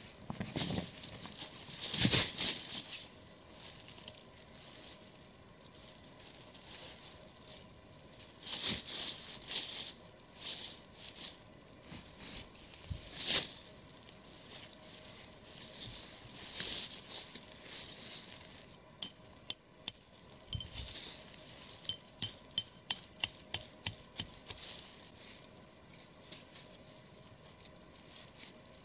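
Dry fallen leaves rustling and crunching and a canvas shelter sheet being handled as it is pitched over a log, in irregular bursts. In the second half comes a run of short sharp taps, about two a second.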